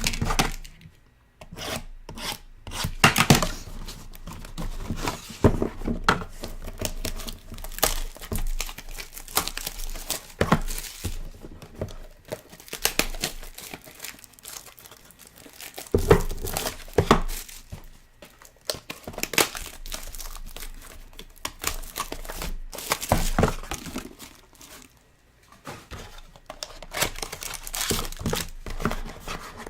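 Plastic wrapping and packaging of a Panini Treble soccer card box being torn open and crinkled by hand: irregular rips and rustles, with brief lulls just after the start and again about three-quarters of the way through.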